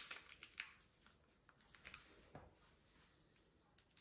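Faint crinkling and clicking of a small opened packet of active dry yeast being folded shut by hand, thinning out after about two seconds, with one soft bump a little past halfway.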